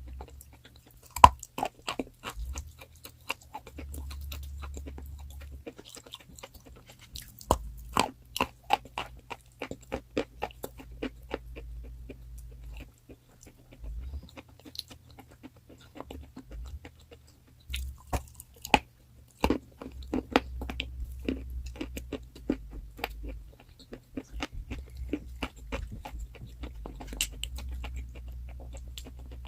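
Crunchy chalk being bitten and chewed close to the microphone: sharp cracking crunches in clusters of bites, over a faint low hum.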